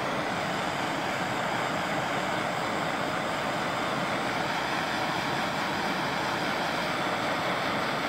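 Handheld gas torch burning with a steady hiss of the flame while it warms a gel-filled heat-shrink wire connector so that it shrinks.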